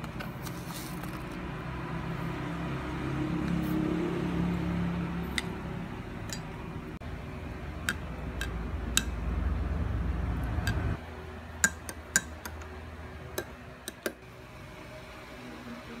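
Metal spoon clinking against a glass mug as chia seeds are stirred into water, a dozen or so separate light clinks. A low steady hum runs underneath and cuts off about two-thirds of the way through.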